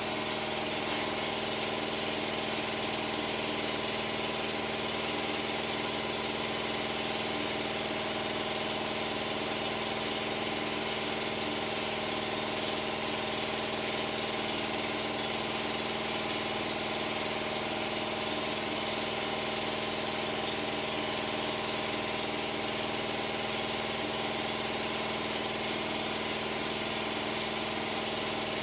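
Engine idling steadily, its hum and pitch unchanging.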